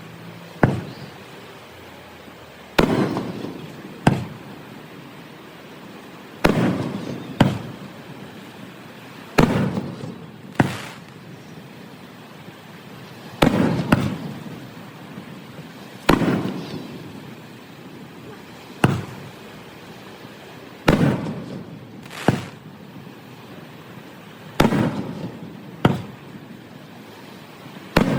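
Aerial fireworks shells bursting one after another: about sixteen sharp bangs at uneven gaps of one to three seconds, each trailing off over a second or so.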